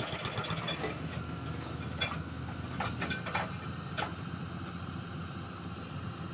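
Heavy excavator diesel engine running steadily, with a few sharp metallic clinks about two to four seconds in.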